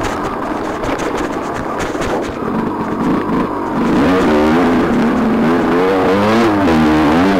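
Dirt bike engine under way on a trail. Its pitch climbs and drops with the throttle, most clearly from about halfway on, over a steady rush of wind and tyre noise.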